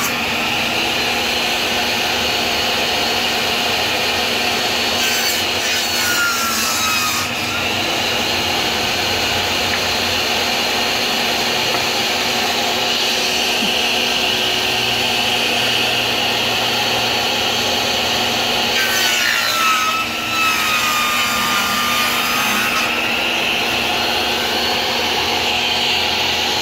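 Portable table saw running continuously as it rips wooden fence pickets into strips. The saw's pitch sags and recovers twice, about five and nineteen seconds in.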